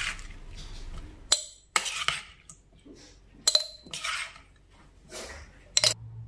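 Metal spoon knocking against a glass jar and a bowl while wet sliced bitter melon salad is spooned into the jar: about four sharp clinks, two of them ringing briefly, between softer scraping and sliding sounds.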